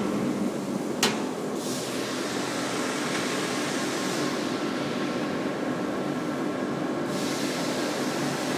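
Cadillac Cookers rotisserie smoker's automatic gas burner and blower running with a steady rushing hum and a faint steady whine, holding the cooker at temperature during seasoning. A single sharp click sounds about a second in.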